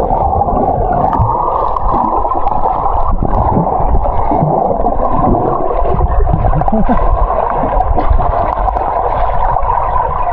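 Underwater sound from a camera submerged with a swimmer just after a jump into the water: a steady, muffled rush and gurgle of water.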